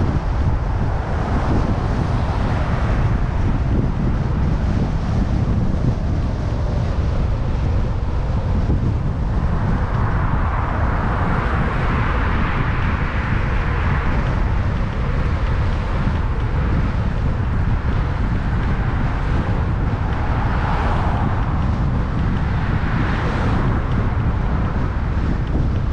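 Strong wind buffeting the microphone of a moving bicycle's camera, a steady low rumble, with motor traffic passing underneath and a swell in the noise about ten to fourteen seconds in.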